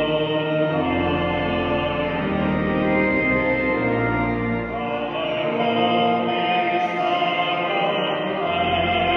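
Church organ playing slow, sustained hymn chords over a deep bass line that moves note every second or two, with a voice singing along.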